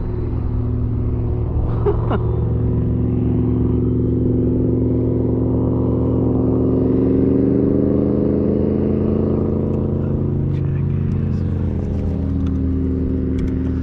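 A motor running steadily: a hum of several tones that drift slightly in pitch, rising and settling a little partway through.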